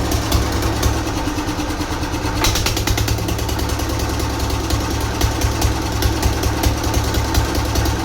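Old diesel engine running steadily after repair, with a fast, even firing rhythm; the clatter turns a little brighter about two and a half seconds in.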